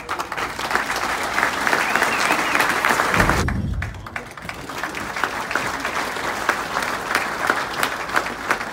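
Audience applauding: a dense run of many hands clapping that dips briefly, with a low thump, a little after three seconds in, then carries on.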